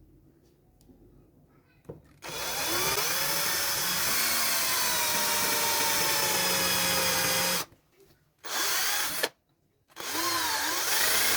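Electric drill running in three spells, a long one of about five seconds and then two short ones. Its motor whine sags and recovers as it bites in.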